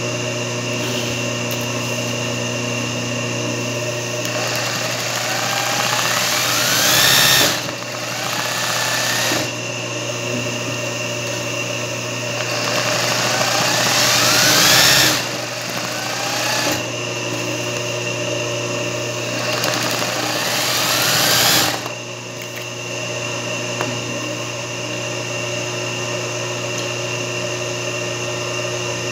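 Singer 20U industrial zigzag sewing machine stitching satin-stitch embroidery in about five runs, each rising in pitch as the machine speeds up and then stopping short, over a steady motor hum.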